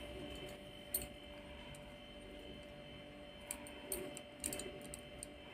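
Faint handling sounds as bare hands press and seal a ball of dough around a dry sattu filling: a few soft scattered clicks over a steady low hum.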